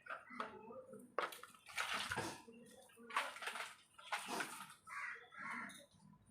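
Water splashing in three short bursts, with small scattered sounds between them.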